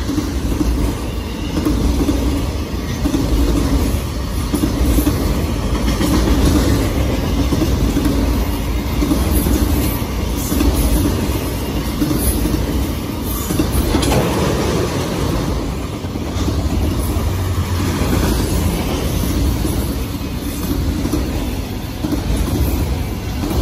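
Autorack freight cars rolling past close by: a steady rumble and clatter of steel wheels on rail.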